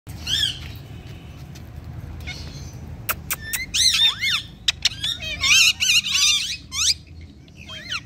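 Pet parrots calling: bursts of short chirping calls that swoop up and down in pitch, about half a second in, around four seconds in, and again from about five to seven seconds, with a few sharp clicks around three seconds in. A steady low rumble runs underneath.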